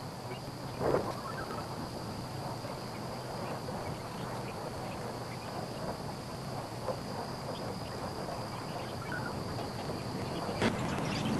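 Insects sounding outdoors in one steady high tone that stops shortly before the end, with a faint short sound about a second in.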